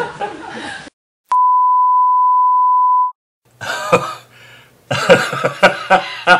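A steady 1 kHz video test tone, the line-up tone laid under colour bars. It starts with a click a little over a second in and cuts off abruptly about two seconds later. Voices are heard before and after it.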